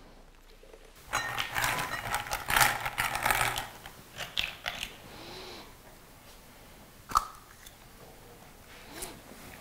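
Draw lots being mixed and picked out by hand: dense clattering and crackling clicks for about three and a half seconds starting about a second in, then a single sharp click a few seconds later.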